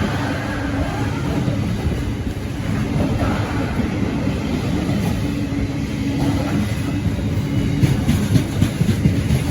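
Freight train rolling past: a steady, loud rumble of wagons on the rails with irregular knocks, and a few sharper clicks near the end.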